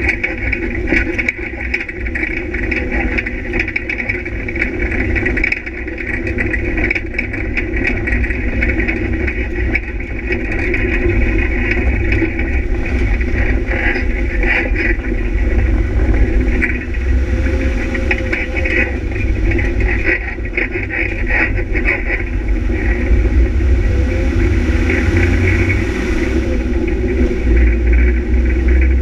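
Onboard sound of a competition vehicle's engine running hard along a gravel track, with rattling from the vehicle and the loose surface. The engine note shifts a few times as it accelerates and changes speed.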